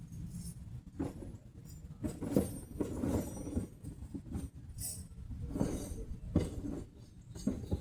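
Metal hand tools clinking and knocking at irregular intervals over a low steady rumble, typical of someone rummaging through wrenches and sockets.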